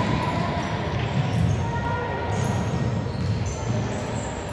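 Futsal game sounds in a large echoing sports hall: the ball being played and players moving on the wooden court, with faint voices in the background.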